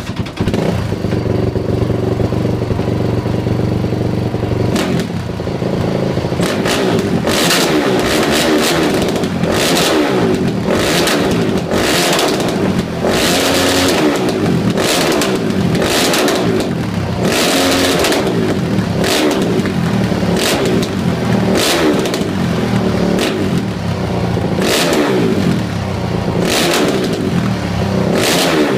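Honda CRF450 dirt bike's single-cylinder four-stroke engine through a DEP aftermarket exhaust, idling steadily for about five seconds, then revved over and over in short blips to the end.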